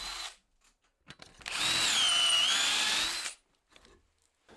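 Cordless drill boring dowel holes through a doweling jig into softwood. One run stops just after the start. A second, louder run of about two seconds comes midway, its whine dipping in pitch as the bit bites and then recovering.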